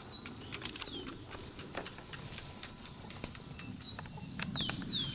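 A bird calling with short whistled notes that slide downward, one near the start and three in quick succession near the end, over scattered light clicks and scraping from a knife working a strip of green bamboo.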